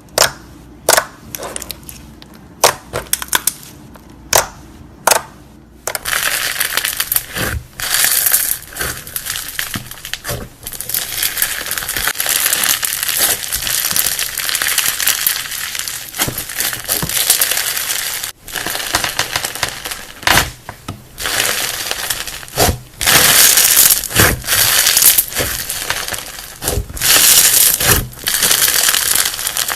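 Slime being pressed and squeezed by hand. For about six seconds it gives a series of separate sharp pops and clicks, then a continuous crackling with many small pops.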